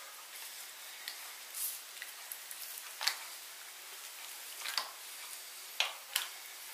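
Quiet handling of damp blanched fresh lasagna sheets as they are peeled off a cloth and pressed into a metal baking pan: soft squishes, with a few short light taps scattered throughout.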